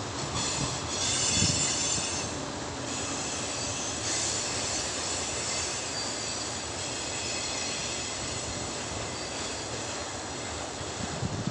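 A long train of loaded tank cars rolls past under braking, its wheels and brakes squealing in high, layered tones over a steady rumble. The squeal is loudest about half a second to three seconds in, and again from about four to seven seconds.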